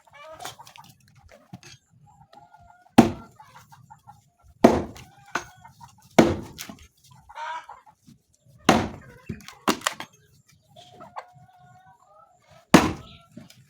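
Chickens clucking in the background, broken by a series of loud, sharp knocks every second or two.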